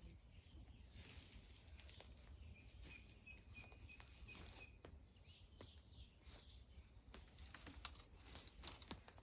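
Quiet outdoor ambience: a distant bird gives one thin, high, slightly wavering note lasting about two seconds, from a couple of seconds in, with scattered faint clicks and crackles around it.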